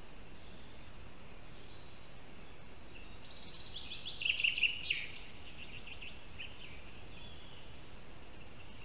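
Steady forest background hiss at the nest camera. About three and a half seconds in, a small songbird sings one short phrase of rapid high notes, and fainter notes follow.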